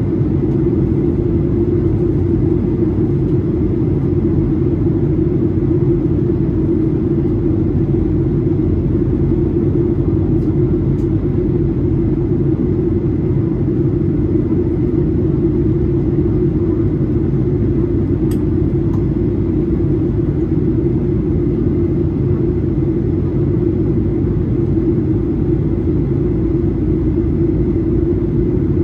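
Steady cabin drone of a Boeing 737-800 climbing out, heard from a window seat over the wing: the hum of its CFM56-7B engines blended with airflow noise, with a faint steady whine above it. A few faint ticks come through near the middle.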